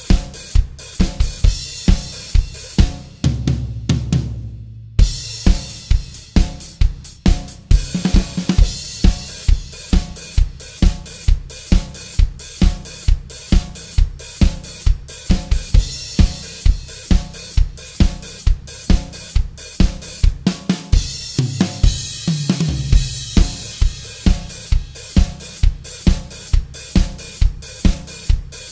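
Drum kit playing a steady groove on its own: bass drum on every beat, snare backbeats, and a hi-hat opening and closing on the off-beats, with crash cymbals marking the starts of phrases. The cymbals drop out briefly about three seconds in while the low drums carry on.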